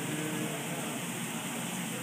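Vegetables, seafood and noodles sizzling on a hot teppanyaki griddle: a steady hiss, with faint voices in the background.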